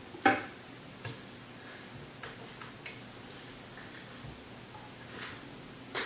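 One sharp knock about a quarter second in as a plastic water jug is hung on an overhead bar, then a few faint clicks and taps of handling on the bar.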